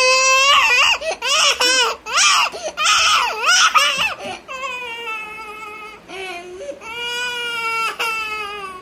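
A young boy crying: short, wavering sobbing wails for about the first four seconds, then two long, drawn-out wails.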